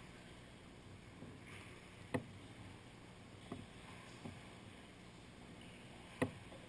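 Sea kayak moving through a sea cave: quiet water noise broken by a few sharp knocks, the two loudest about two seconds in and near the end.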